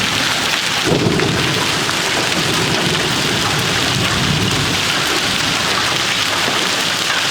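Thunderstorm downpour of rain and hail hissing steadily, with a low thunder rumble that starts about a second in and rolls on for several seconds.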